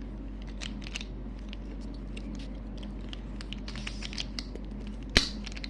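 Light plastic clicking and tapping of Rubik's cube pieces being handled and pressed into place, with one sharper click about five seconds in.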